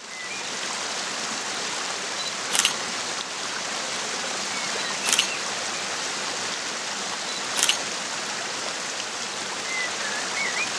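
Steady rush of running water with a few faint chirps, and a camera shutter clicking three times, about two and a half seconds apart.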